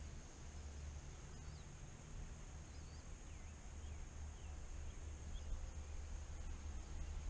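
Wind buffeting the microphone as a low, uneven rumble, with a few faint bird chirps about one to four seconds in.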